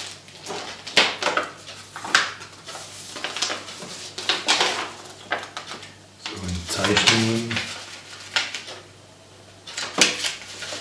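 Paper instruction leaflets and a clear plastic packaging tray being handled and unfolded: rustling with repeated sharp crackles. A short vocal murmur comes about six seconds in.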